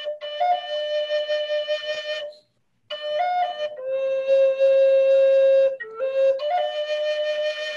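Flute playing a slow melody of long held notes. The sound drops out abruptly for about half a second roughly two and a half seconds in.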